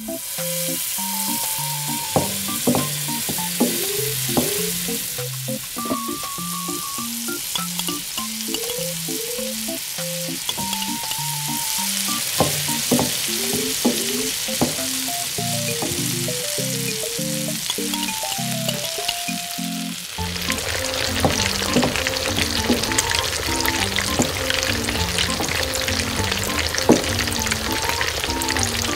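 Oil sizzling in a miniature stainless-steel wok as minced ginger and garlic and then chunks of food are stirred in, with scattered clicks. About twenty seconds in the sizzle turns louder and denser, full of small pops.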